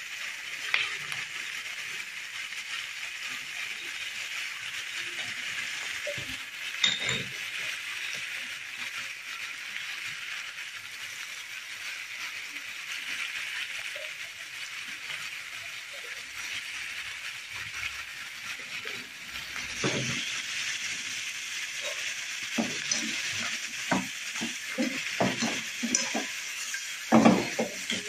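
Ribs and vegetables sizzling steadily in a frying pan. In the last third, wooden chopsticks knock repeatedly against the pan as the stir-fry is turned.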